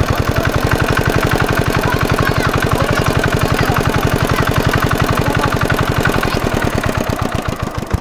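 Small engine of a water pump running steadily with a fast, even knocking beat, draining the pond through the hose. The level dips briefly near the end.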